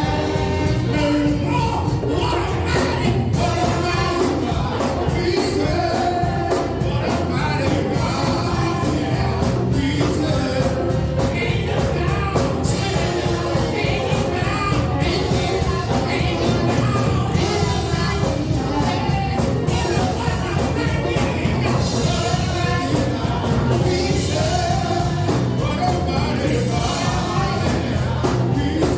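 Gospel worship music with singing over a full band, steady drum beat and bass.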